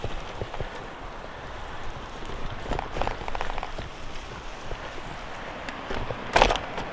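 Bicycle tyres rolling over gravelly sand, a steady crunching crackle with small clicks and rattles from the bike. The crunching thickens about three seconds in, and a loud clatter comes about six and a half seconds in as the wheels run over rough ground and dry seaweed.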